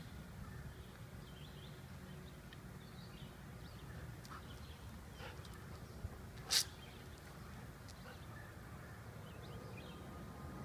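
Quiet outdoor ambience: faint, scattered bird chirps over a low rumble. One short, sharp sound stands out about six and a half seconds in.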